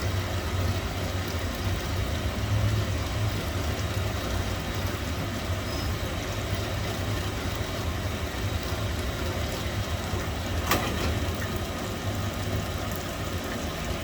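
Honing machine running steadily with a low hum while it hones the inside diameter of a bore ring down to size, with one sharp click near the end.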